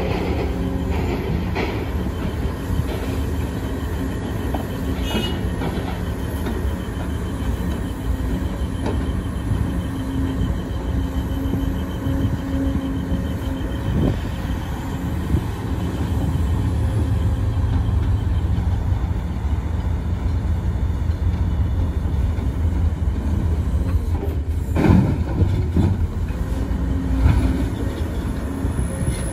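Hydraulic excavator's diesel engine running steadily under load while it digs and loads dirt and rock into a dump truck, with a few knocks and clanks of rock and steel, the loudest near the end.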